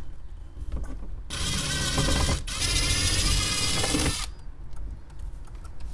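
Cordless right-angle drill/driver spinning with a Phillips bit, backing out the gauge cluster bezel's screws: two runs of the motor whine with a short break between, the first about a second long, the second nearly two. Light handling clicks before and after.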